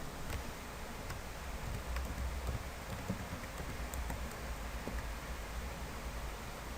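Scattered computer keyboard keystrokes and clicks, irregular and sparse, over a steady low hum and hiss.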